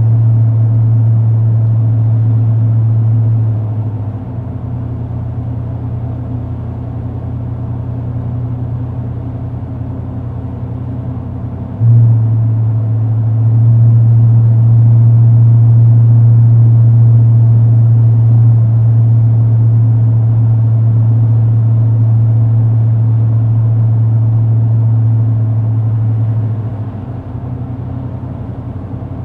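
Car exhaust drone, a steady low tone, switched between two mufflers by a diverter valve. It is loud at first, drops much quieter about four seconds in, jumps back loud suddenly at about twelve seconds, then turns quieter again near the end. The loud stretches fit a conventional competitor's muffler droning, and the quieter ones fit the drone-free DynoMax VT valved muffler.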